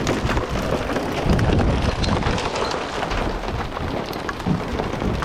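Heavy rain pelting down, with many sharp drop strikes and a gust of wind buffeting the microphone about a second in.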